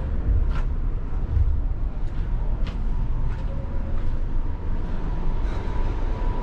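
Steady low rumble of a cruise ship's interior with a thin constant hum, and faint ticks of footsteps as someone walks along.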